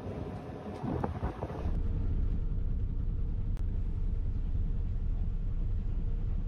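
City bus heard from inside the cabin while riding: a steady low rumble of engine and road noise. It starts abruptly after about a second and a half of street noise.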